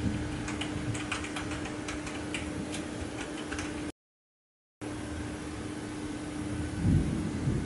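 Thunderstorm ambience: a steady rain hiss with scattered sharp raindrop ticks, and a low rumble of distant thunder swelling near the end. The sound cuts out completely for about a second midway.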